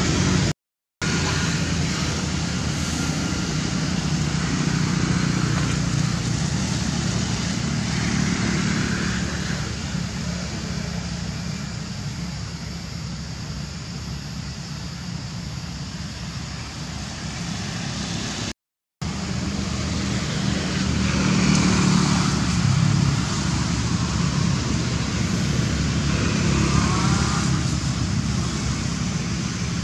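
Steady low rumbling background noise that drops out twice for a fraction of a second, with a short squeaky call near the end.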